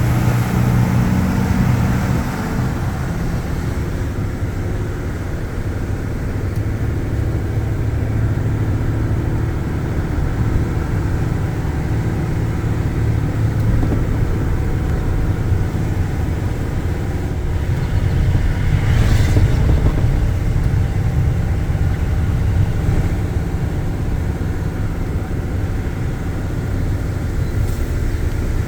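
Car driving on a road: a steady low rumble of engine and road noise. About two-thirds of the way through, a brief hiss rises and fades, like something passing.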